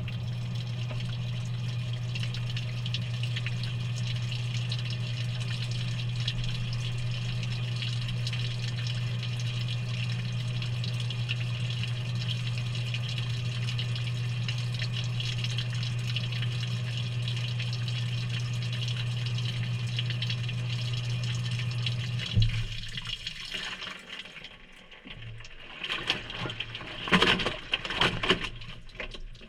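Maytag front-loading washer filling with water, heard from inside the drum: a steady stream of water hissing in over a constant low hum. About 22 seconds in, the flow and hum stop, and a few splashes and drips follow.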